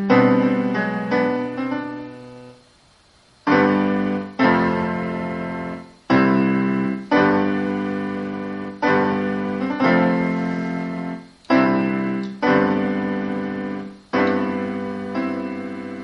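Piano playing a slow original piece in full chords, each struck and left to ring away. After a brief pause about three seconds in, a new chord comes roughly once a second.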